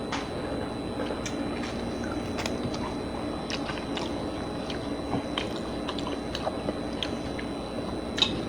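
Close-miked chewing and mouth sounds of people eating spaghetti and meatballs, with small clicks scattered throughout.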